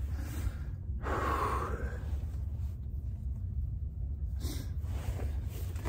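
A man's breathy exhale, like a sigh, about a second in, over a steady low rumble.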